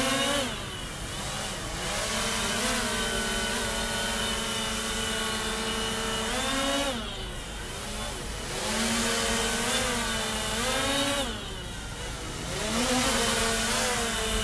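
DJI Mavic Air 2 quadcopter's motors and propellers running in flight, their pitch rising and falling several times, with a steady high-pitched tone over them. That high tone is an abnormal noise that the repair centre traced to a sticking left front motor.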